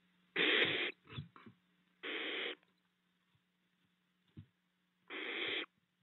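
Barn owlets in a nest box giving three harsh hissing calls, each about half a second long, with a few soft knocks from movement in between. A steady low hum runs underneath.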